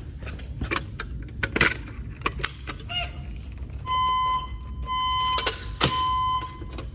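A few clicks and knocks, then a fire alarm speaker sounds a steady 1 kHz beep three times, about a second apart. It is the alert tone of a voice evacuation system, which leads into its spoken "Attention please" message.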